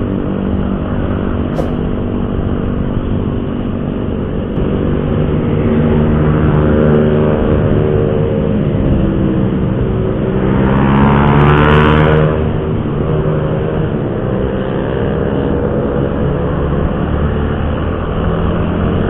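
Yamaha R15 single-cylinder motorcycle engine running at road speed. About ten seconds in it climbs in pitch and gets louder for a couple of seconds, then settles back.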